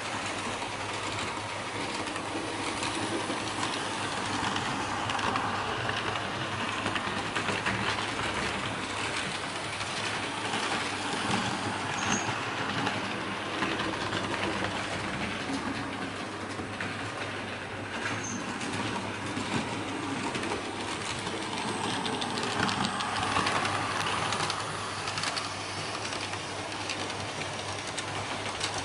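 Märklin H0 model trains running over metal M-track: a steady clattering rumble of wheels and motors that swells and eases a little as the trains pass.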